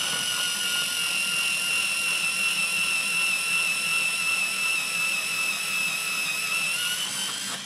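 AFMAT electric pencil sharpener running with a steady high motor whine while its cutter shaves a cedar pencil. The whine sags slightly under load and picks up again near the end as the cut finishes.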